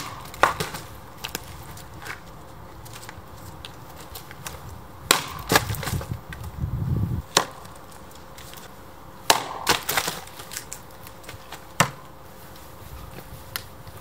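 Forged splitting axe with a 1.5 kg head chopping firewood rounds on a chopping block: a series of sharp chops with the crack of the wood splitting, and knocks of split pieces and logs landing on the wood.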